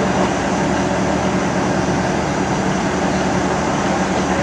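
Diesel railcar idling at a standstill: a steady, unchanging drone with a constant low hum and a layer of hiss.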